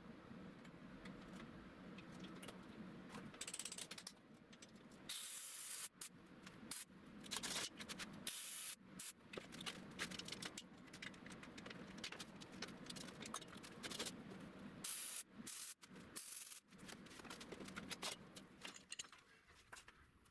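Small steel parts being handled, clamped in a bench vise and fitted into a lathe chuck: intermittent metallic clicks and short scraping bursts.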